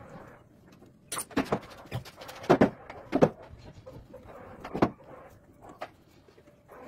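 Metal clicks and knocks from a T-handle chuck key being fitted and turned in the jaws of a stopped lathe chuck. There are several separate sharp knocks, the loudest two near the middle.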